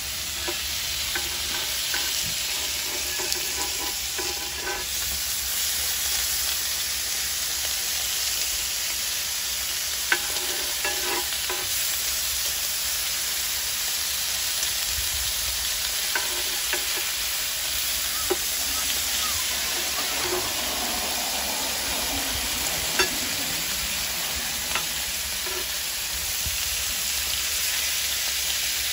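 Bacon and sausage links sizzling steadily on a hot flat-top griddle, with two sharp taps standing out along the way.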